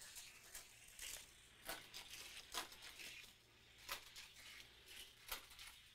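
Faint, scattered clicks and rattles of a Hot Wheels Hi-Roller die-cast car running along plastic Hot Wheels track and through the kicker loops.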